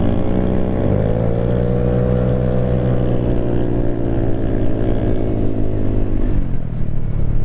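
Vespa scooter's single-cylinder engine through a Remus exhaust, heard on board while riding: the pitch rises about a second in as it accelerates, holds steady at cruising speed, then falls away near the end as the throttle is closed.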